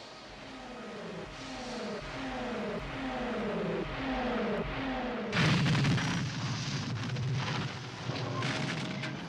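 KITT's scanner sound effect: a run of repeating falling electronic whooshes, about three every two seconds. About five seconds in, a loud rushing car sound takes over.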